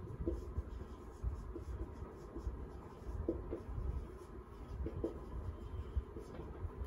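Handwriting strokes: an irregular run of small scratching strokes and light taps.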